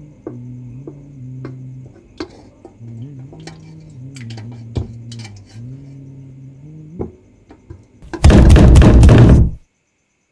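Clinks of kitchen utensils and pans over a low, slowly shifting music drone. About eight seconds in comes a sudden, very loud burst of rapid banging, like hammering on a door, lasting just over a second before it cuts off abruptly.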